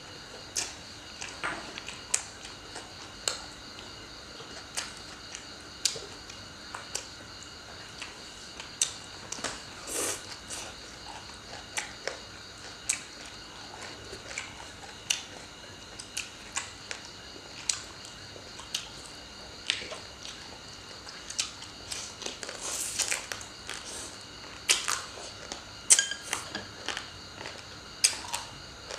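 Close-miked eating: crunchy chewing of shredded green papaya salad and chopsticks clicking against plates and bowls, sharp clicks about once a second, over a faint steady high whine.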